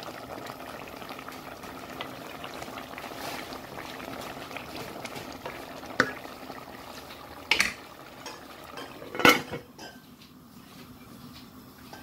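Tomato fish curry bubbling steadily at a boil in an open aluminium pot. A couple of metal clinks follow, then a loud clank of the aluminium lid near the end, after which the bubbling is quieter.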